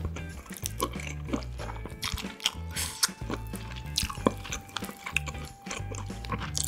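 Close-miked chewing and wet mouth sounds of eating kimchi with rice, with short clicks of wooden chopsticks against a stainless rice bowl, over background music with a stepping bass line.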